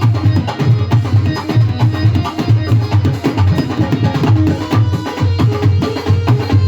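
Instrumental Indian devotional band music: hand drums in the tabla/dholak family keep a fast, steady beat under a melody, which comes forward near the end.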